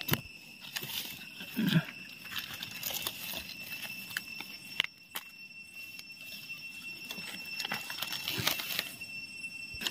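Dry fallen leaves rustling and crackling, with scattered clicks of twigs, as someone reaches through the leaf litter to pick a mushroom. A thin, steady high-pitched whine runs underneath throughout.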